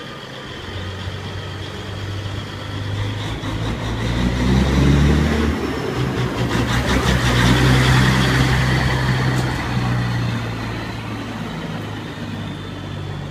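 International 9300 dump truck's diesel engine running as it drives past close by. It grows louder from about a second in, is loudest in the middle as the truck passes, and eases off near the end.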